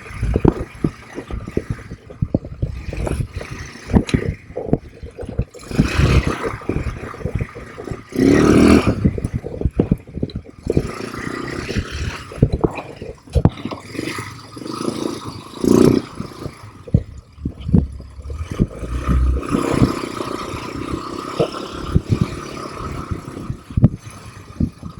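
ATV riding over a muddy, rough trail: the engine runs under a dense, irregular clatter of knocks and rattles as the machine jolts over the ground.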